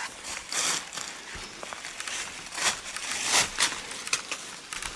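Irregular rustling and crackling, like dry fallen leaves being stirred, with handling noise as the camera is moved in among the rocks.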